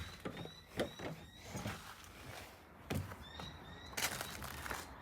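Faint scattered knocks and clicks, louder for about a second near the end, with short high chirps, such as birdsong, in the background.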